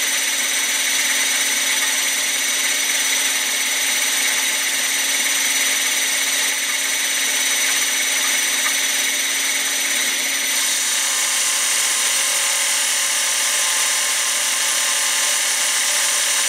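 Electric motor and belt-drive spindle of a PM-727M benchtop mill running steadily at a little over 1,000 rpm, a steady whine with hiss. The upper hiss drops slightly about ten seconds in.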